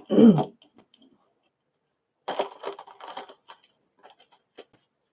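Handling noise: a loud short sound right at the start, then about a second of dense rattling clicks and a scatter of lighter clicks.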